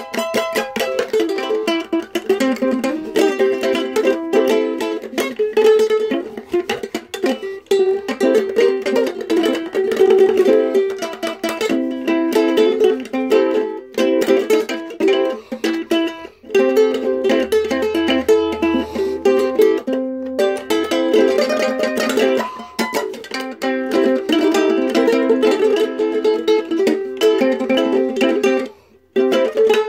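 Ukulele played solo, a quick run of plucked and strummed notes with a few short breaks.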